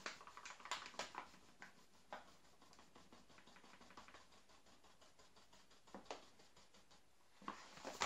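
Finely ground whole-wheat flour sprinkling from a paper bag into a plastic mixing bowl: a faint soft patter of light ticks, densest in the first two seconds, then thinning out, with a couple of light ticks about six seconds in.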